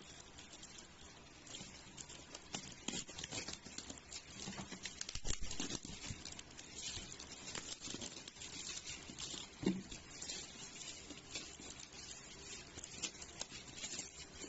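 Irregular small clicks, taps and rustles of objects being handled, with a few louder knocks about five seconds in and again near ten seconds.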